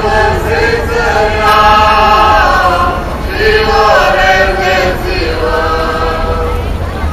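A choir of voices singing long held notes in phrases a few seconds long, over a steady low rumble.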